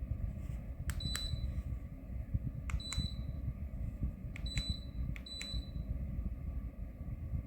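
Four short, high-pitched beeps from an electric ceramic fan heater's controls, each coming right after a click as a button is pressed; the last two come close together. A steady low rumble runs underneath.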